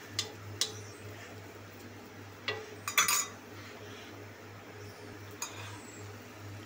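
Steel spoon clinking and scraping on a tawa while ghee is spread over a cooking paratha: a handful of short, sharp clinks, the loudest cluster about three seconds in, over a low steady hum.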